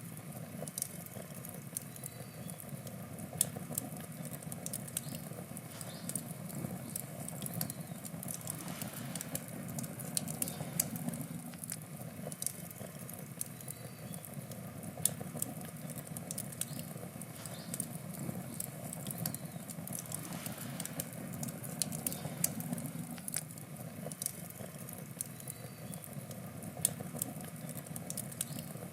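Wood campfire burning: irregular sharp crackles and pops from the burning wood over a steady low rush of flame.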